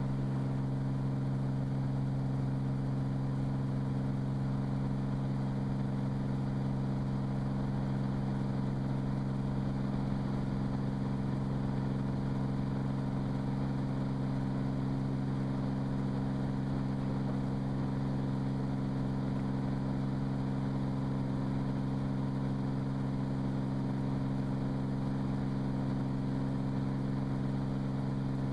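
Cirrus SR22's six-cylinder Continental IO-550 engine and three-blade propeller running at climb power, heard inside the cockpit as a steady, unchanging low hum.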